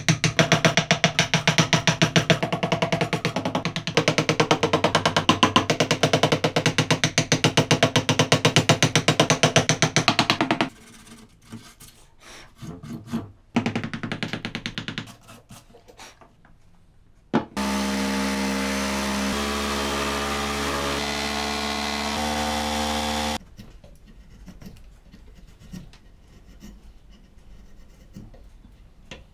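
A wooden mallet tapping a carving chisel into wood in a rapid, even run of strikes for about the first third, followed by scattered quieter cuts. Past the middle a loud steady pitched hum with stepping tones runs for several seconds, then stops suddenly, leaving faint chisel scraping as a small wooden piece is pared.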